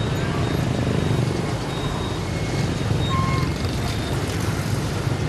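Dense road traffic: many engines running together in a steady low rumble, with a few brief high beeps near the middle.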